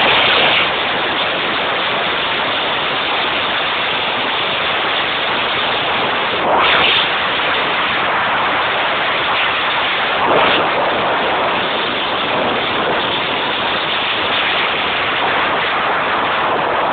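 Steady rushing wind noise on the microphone of a camera riding on a moving trail bike, loud enough to bury the engine, with two brief louder gusts about a third and three-fifths of the way through.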